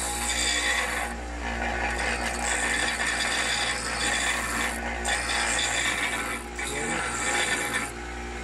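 A 150 mm bench grinder runs with a steady motor hum while a lump of tatara-smelted sand-iron bloom is pressed against its wheel. The contact gives a rasping grind in several passes with short breaks, and stops near the end when the lump is pulled away.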